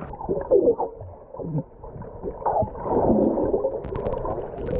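Muffled gurgling and bubbling water heard underwater in a swimming pool, with a few sharp clicks near the end.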